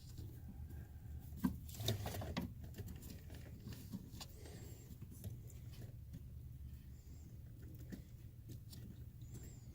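Faint scratching and clicking of a plastic brake light switch being twisted by hand into its threaded bracket, with a few sharper clicks in the first couple of seconds, over a low steady hum.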